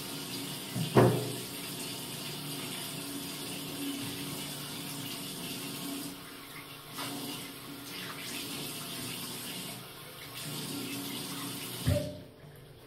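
Bathroom tap running into a ceramic washbasin as it is scrubbed with a sponge, with a sharp knock about a second in. The running water stops abruptly near the end, just after a second knock as the tap is shut off.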